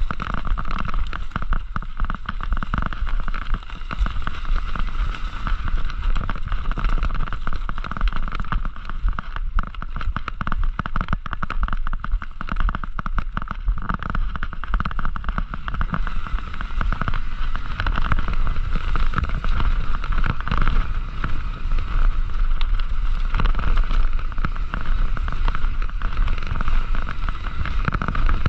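Mountain bike ridden over a rough dirt trail: a steady, dense crackle and rattle of tyres and bike over the ground, with a low rumble underneath.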